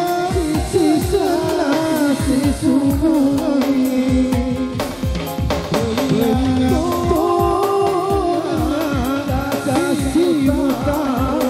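Music: a song with a singer's wavering, ornamented melody over a steady drum beat.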